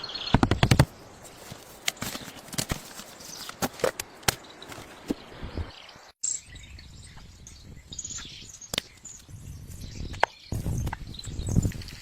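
Irregular knocks, clicks and rustling. The sound breaks off abruptly about six seconds in, then resumes.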